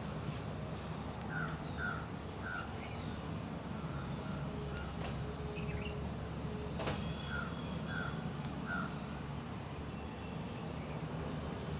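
A crow cawing in two runs of three harsh caws, the first about a second in and the second about seven seconds in, over a steady outdoor background with faint high chirping. A single sharp click comes just before the second run.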